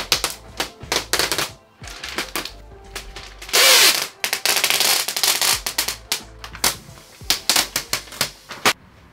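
Thin plastic protective film crackling and rustling as it is peeled off a TV screen, in many sharp irregular crackles, with one loud rustle about four seconds in as the big sheet comes away.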